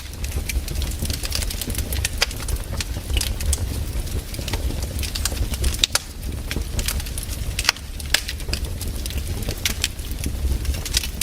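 Wood campfire crackling, with frequent irregular sharp pops and snaps over a steady low rumble; a few louder pops stand out, about six and eight seconds in.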